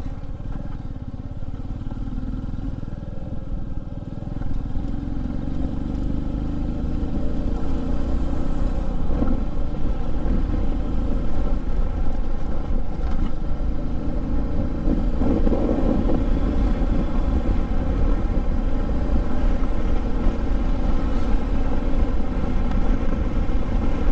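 Motorcycle engine running under way. It grows louder over the first several seconds as the bike picks up speed, then holds a steady pace.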